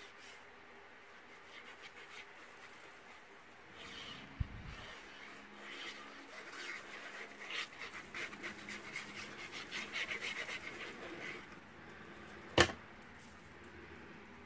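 Liquid glue bottle squeezed onto cardstock, sputtering and hissing in short irregular puffs for several seconds. A soft knock comes about four seconds in, and a single sharp click comes near the end.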